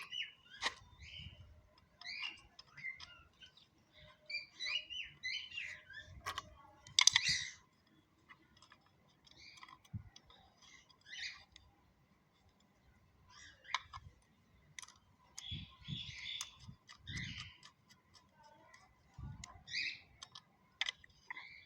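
Scattered small clicks and a few dull knocks from hands and a screwdriver working a plastic power plug as the neutral wire is fitted to its terminal, with birds chirping in the background.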